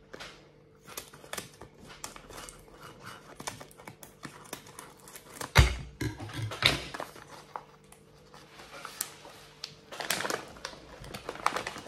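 Plastic snack packaging crinkling and rustling as it is cut open with scissors and torn apart, with scattered small clicks. A sharp thump about halfway through is the loudest sound.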